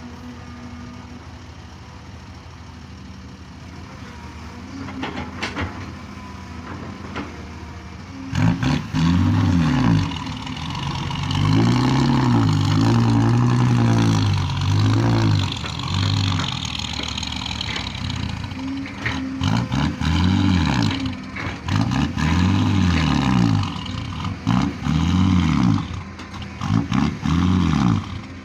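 Excavator diesel engine running steadily at first, then from about eight seconds in rising and falling in pitch again and again under hydraulic load, about six times, as the machine digs and swings to load a dump truck.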